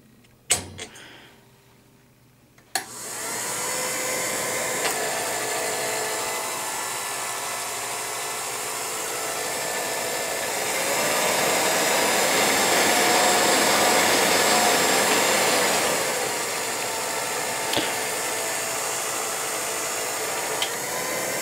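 Electric motor and cooling blower of a 1949 Revere P-90 8mm projector, freshly oiled, switched on with a click about three seconds in and running with a steady whir. Its pitch and loudness rise for about five seconds midway, then drop back, with a few light clicks from the mechanism.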